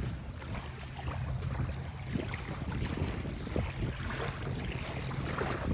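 Gusty wind buffeting the microphone, with small waves washing on the sand.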